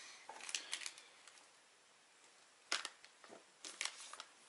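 Scattered light clicks and rustles of small items being handled, with a sharper click nearly three seconds in.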